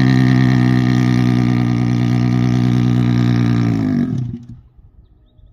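Hero Splendor's single-cylinder four-stroke engine running at steady revs, then switched off about four seconds in, the note sagging as it dies away.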